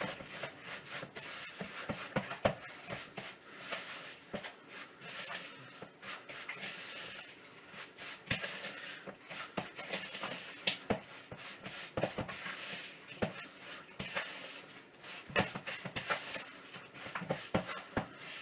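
Wooden spoon stirring and mashing egg yolks with sugar in a bowl: irregular scraping with frequent light knocks against the bowl.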